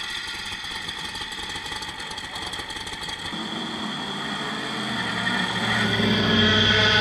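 Historic Surtees Formula 1 car's engine running at low revs as the car rolls slowly down the pit lane, growing louder as it nears; a deeper, steady engine note comes in about three seconds in.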